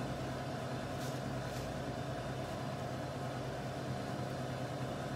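Steady mechanical room hum with a couple of constant tones, and a few faint rustles of loose spring-mix salad leaves being placed by hand.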